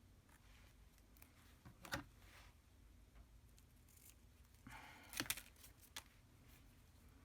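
Faint handling of craft paper: a sharp click about two seconds in, then a short rustle with a few clicks about five seconds in.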